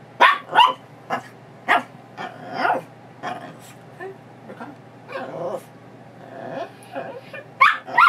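Chihuahua-mix dog barking excitedly: a quick run of short, sharp barks at the start and again near the end, with longer drawn-out vocal sounds in between, as she gets worked up before a walk.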